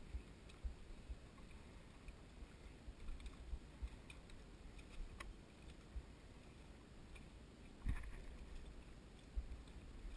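Faint lapping of small waves against a dock, with scattered soft low thumps and light clicks and one louder knock about eight seconds in.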